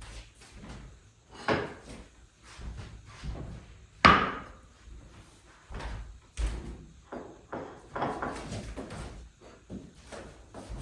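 A series of irregular knocks and bumps, with one loud sharp bang about four seconds in.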